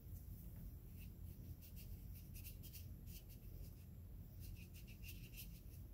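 Faint scratching of a syringe needle scraping spores off a paper spore print into a small puddle of water, in short runs of quick scratches around two and five seconds in, over a low steady hum.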